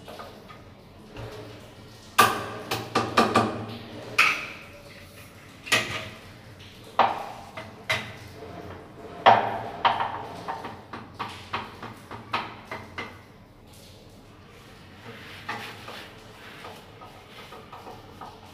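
Irregular knocks and clatter from a metal wall bracket and a spirit level being handled and set against ceramic wall tiles. A quick cluster of hard knocks comes about two seconds in, then single knocks and taps at uneven intervals that die away in the second half.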